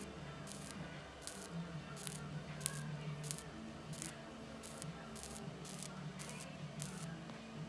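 Plasma pen sparking against skin: short crackling hisses at irregular intervals, about two a second, over a low steady hum.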